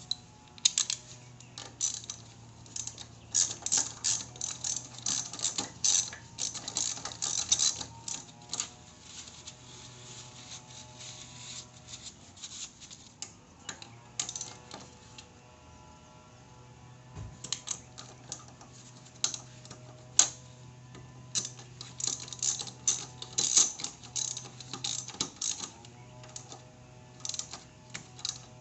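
Clusters of rapid, light metallic clicks and rattles from hand tools at work on a motorcycle's front brake caliper, over a steady low hum.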